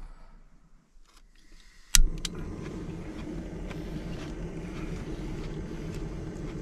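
Small gas canister camp stove being lit: a sharp igniter click about two seconds in, a second click just after, then the burner running with a steady rushing noise.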